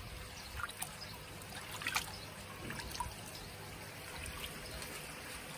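Faint trickling of water in a plastic tub, with a few small splashes, as a hand sprinkles and rinses water over a koi's back to wash excess wound-seal powder off its wound.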